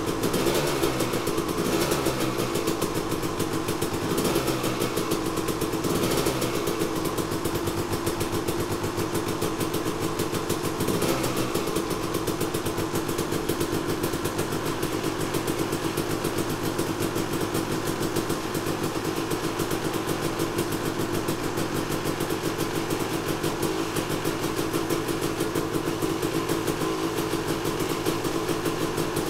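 2001 Kawasaki KX250's single-cylinder two-stroke engine running, with several throttle blips that rise and fall in the first dozen seconds, then settling to a steady idle.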